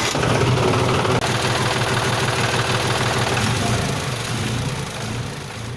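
Tractor engine running with a steady low pulsing, slowly fading toward the end.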